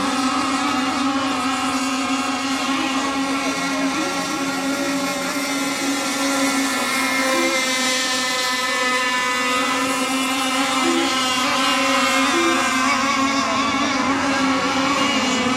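Radio-controlled race boats running on the water, a steady engine note throughout, with a second wavering engine note coming in about halfway through.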